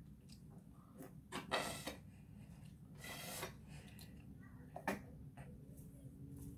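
Quiet, short mouth and straw sounds: a plastic straw licked, worked into a cup of milkshake and sucked on, giving a few brief noisy slurps and rubs, with a light click near five seconds in.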